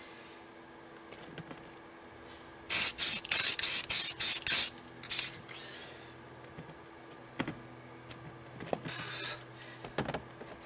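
Spray paint hissing out in short bursts as a light base coat goes onto small resin figures. A quick run of about seven bursts comes first, then one more, then a longer burst near the end. A couple of light knocks fall in between.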